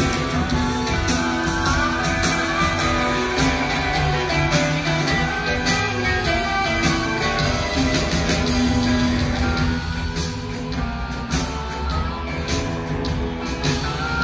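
Live rock band playing an instrumental passage: electric guitars over bass and drums, with a guitar playing lead lines and no singing.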